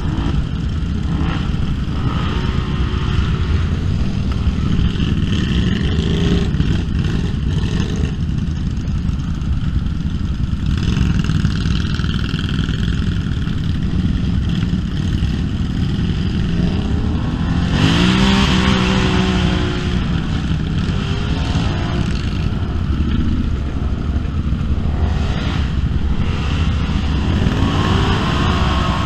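ATV and side-by-side engines idling and revving as the machines push through a flooded mud trail, with water splashing. There are several rising revs, the loudest about two-thirds of the way through.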